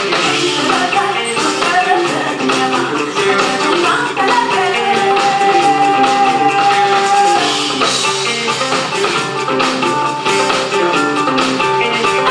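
A live band with a woman singing lead into a microphone over a repeating guitar riff and steady percussion. A long note is held for about three seconds in the middle.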